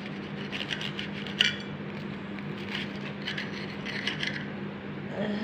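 Serrated table knife sawing through the crisp toasted crust of a grilled cheese sandwich, giving several bursts of dry scraping strokes. A sharp click, the knife or fork against the plate, comes about a second and a half in.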